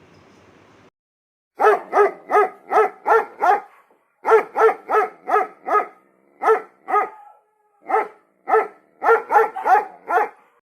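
A dog barking repeatedly: about twenty short, sharp barks in quick runs of several barks each, with brief pauses between the runs.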